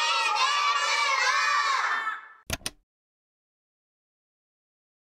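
A group of children shouting together, cutting off about two seconds in, followed by two quick clicks and then silence.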